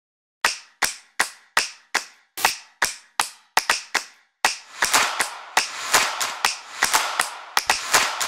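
A steady run of sharp percussive hits, about two and a half a second, like claps or snaps. About halfway through, a noisy wash comes in under them and the hits grow denser, building toward a beat.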